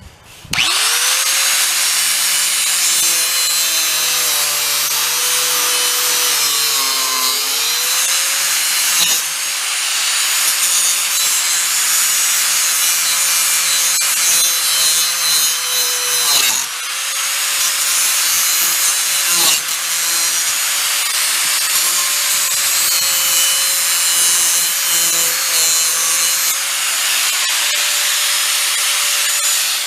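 Angle grinder spinning up about half a second in and then grinding into the metal of an old VW bus gas door lock to cut it off. A steady high whine runs over a hiss of grinding, and its pitch sags several times as the disc is pressed harder into the work.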